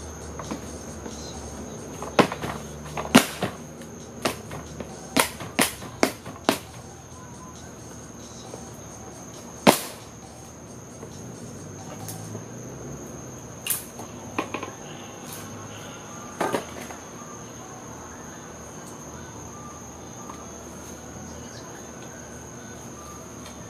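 Sharp wooden knocks and clatter from pallet boards being handled: a quick run of them in the first seven seconds, then a few scattered ones. Under them, crickets trill steadily.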